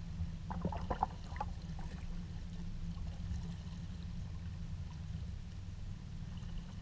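Kayak being paddled with a double-bladed paddle: a steady, muffled low rumble with a few light splashes and drips from the paddle in the first second and a half.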